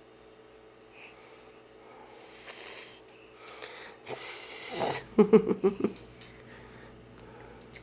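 Dog snorting while eating noodles: two loud breathy snorts about two and four seconds in, then a quick run of short choppy sounds.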